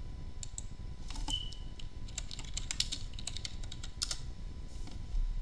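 Typing on a computer keyboard: a run of quick key clicks that stops a little after four seconds in.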